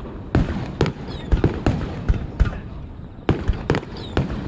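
Aerial fireworks going off in quick, irregular succession: about ten sharp bangs, each with a short rumbling echo, over a steady low rumble.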